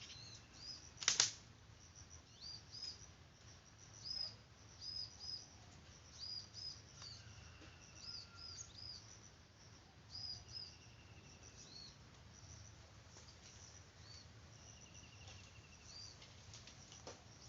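Small birds giving short, high chirps over and over, with a sharp click about a second in.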